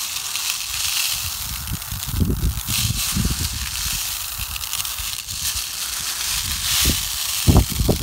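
Small plastic beads rattling and pouring against each other as hands plunge into and stir a bowlful of them: a dense, steady clatter, with low thumps as the hands push in, the strongest about seven and a half seconds in.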